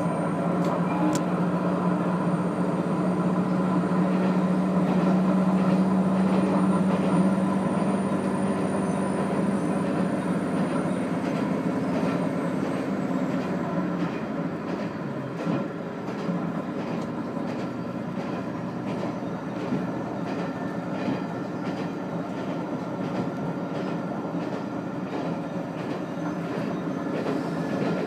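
Diesel railcar running, heard from inside the cabin. A steady engine drone fades away about halfway through, leaving the rolling noise of the wheels, which click over rail joints.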